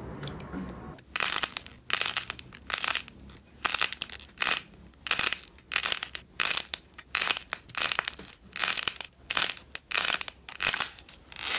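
Hardened clay coating crunching and crackling as fingers squeeze and break it apart, in a run of sharp crunches about one to two a second. Before that, about a second of quieter squishing of foam-bead slime.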